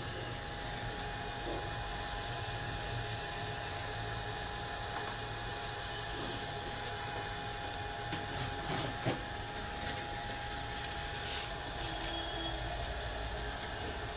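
Steady hum with a faint constant whine, and a few light clicks and knocks about halfway through as a laptop motherboard and the metal arm of a BGA rework station are adjusted by hand.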